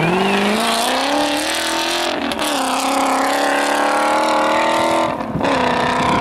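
Rally car engine revving hard as the car accelerates, its pitch climbing steadily in each gear, with upshifts about two seconds in and about five seconds in.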